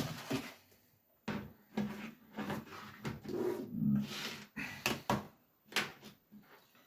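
Handling noise: a run of short knocks, scrapes and clicks as things are moved about on a bench, with brief gaps between them.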